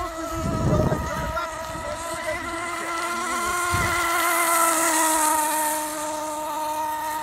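CMB .45 glow-fuel nitro engine of an RC outrigger boat running at steady high revs, a thin high-pitched whine that grows louder as the boat passes about four to five seconds in. A short low rumble comes near the start.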